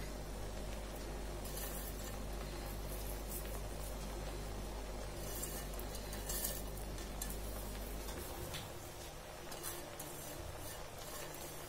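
Faint clinks and rustles as fried onions are scattered by hand from a plate over the rice in a biryani pot. A steady low hum runs beneath and stops about eight seconds in.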